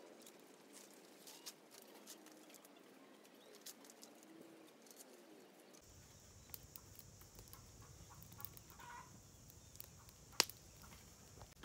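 Chickens clucking faintly. After about six seconds a small fire of dry branches takes over, crackling with a steady high hiss and one sharp pop near the end.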